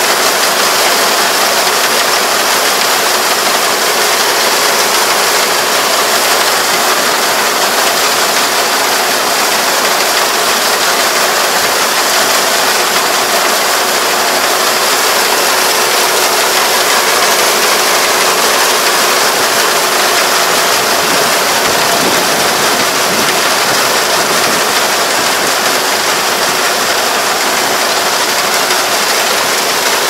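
Combine harvester running steadily: a dense, even mechanical clatter with a faint steady hum underneath.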